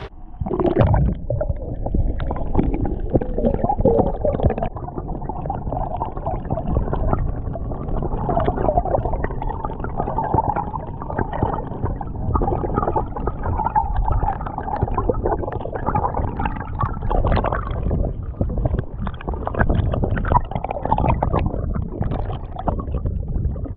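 Muffled rushing and gurgling of creek water heard with the microphone under the surface, with scattered knocks and bumps.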